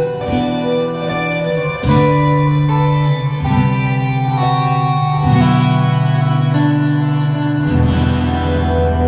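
Guitar playing slow, sustained chords with an effects unit adding echo and reverb, changing chord about every two to three seconds in an instrumental passage.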